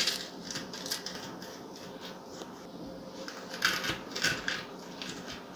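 Handheld garlic press being pushed down and worked over garlic clove halves on a bamboo cutting board: a scattering of short crunches and scrapes, thickest about four seconds in.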